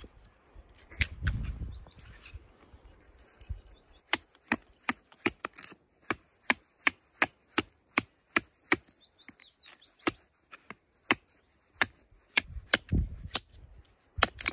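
Grohmann #4 survival knife chopping into the end of a wooden stake held against a tree stump: a steady run of sharp wooden knocks, about three a second, starting about four seconds in and stopping a couple of seconds before the end.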